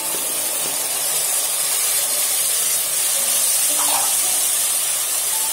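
Freshly added wet chopped tomatoes sizzling in hot oil with onions in an aluminium pressure cooker, a steady loud hiss of frying.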